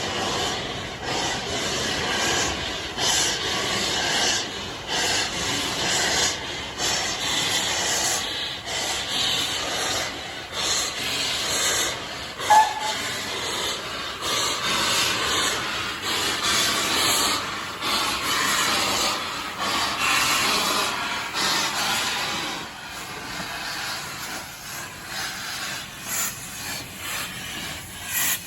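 Heritage railway train on the move: a steady rushing and hissing noise with uneven pulses, and one brief sharp squeal about halfway through.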